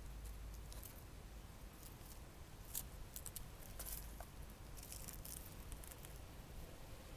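Faint scattered rustles and light scratchy clicks of a long leaf brushing and scraping on a concrete path as a cat bats at it, over a low outdoor rumble.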